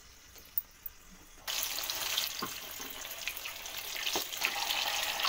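Samosas deep-frying in hot oil in a karahi. After a quiet start with a couple of small clicks, a steady sizzling and crackling sets in suddenly about a second and a half in and grows a little louder toward the end.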